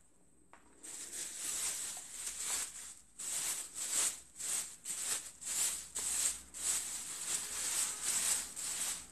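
Rhythmic scratchy rubbing strokes, about two a second, starting about a second in.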